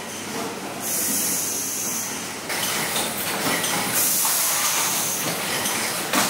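Factory machinery running steadily, with two stretches of loud high hiss, about a second in and again around four seconds in, and a sharp knock near the end.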